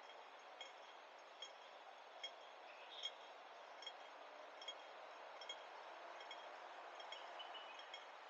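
Pedestrian crossing audible signal ticking slowly, a sharp ringing tick a little more than once a second, over a low steady street hum. The ticks fade after about five seconds. A slow tick like this is the crossing's wait signal.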